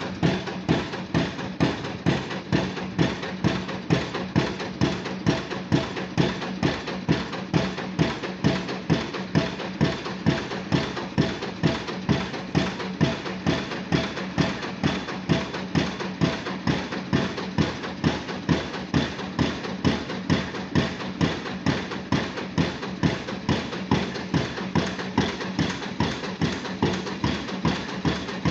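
Pile driving rig's impact hammer striking a pile in a steady, even rhythm, a little more than one blow a second, over the steady hum of the rig's engine.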